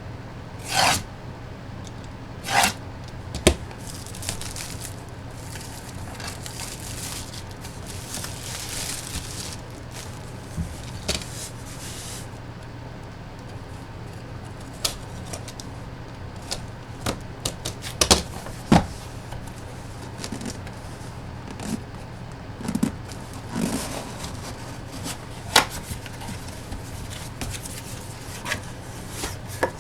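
Packaging of autographed-baseball boxes being opened and handled: scattered scrapes, crinkles and sharp clicks of cardboard and plastic, over a steady low hum.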